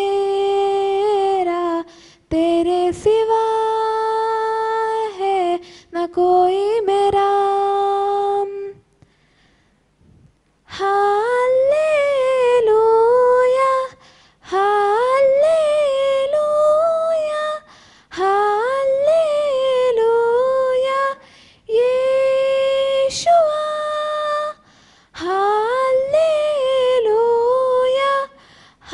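A girl singing a Hindi devotional song to Jesus alone, with no accompaniment, in long held and gliding phrases broken by short breaths and a pause of about two seconds around nine seconds in.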